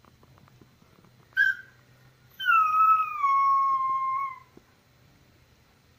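Puppy whining to be fed: a short yelp about a second and a half in, then one long whine, about two seconds, that falls in pitch.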